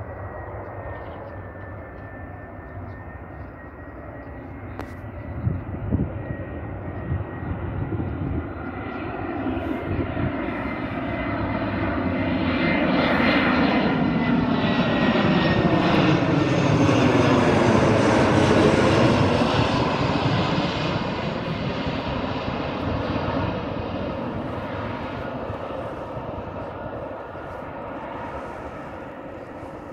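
Airbus A319 jet on final approach with gear down, passing low overhead: the engine noise builds to a peak about halfway through and then fades as it moves away, its pitch falling as it passes. A thin high whine rides over it in the first half.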